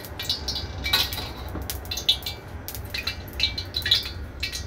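Hot cooking oil crackling and spitting irregularly in a wok as it heats, over a steady low hum.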